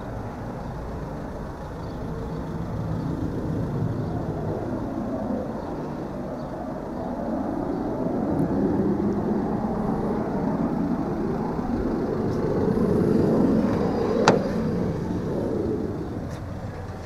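Road traffic passing nearby: a steady rush of passing vehicles that swells and fades several times. A single sharp click comes about 14 seconds in.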